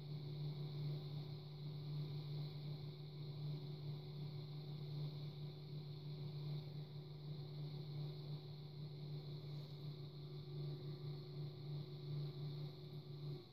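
Electric pottery wheel's motor humming steadily while a clay cup is thrown on it; the hum cuts off near the end.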